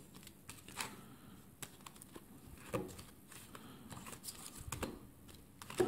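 Silver rounds in soft plastic coin sleeves being handled: faint crinkling of the plastic, with a few light clicks and taps.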